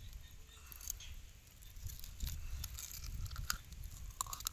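Whole raw fish being skewered on a thin wooden stick and handled: soft wet squishing of the flesh with scattered small clicks and ticks.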